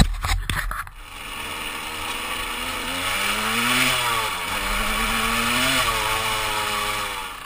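KTM 200 EXC two-stroke dirt bike accelerating, heard from the rider's helmet: the revs climb, dip at a gear change about four seconds in, climb again, then ease off near the end, with wind rushing over the microphone. A sharp knock at the very start.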